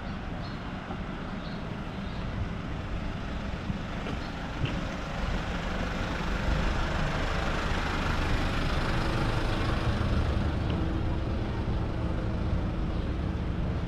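Road traffic: a motor vehicle passes close by. Its noise swells about five seconds in and stays up, and a steady low engine hum runs through the second half.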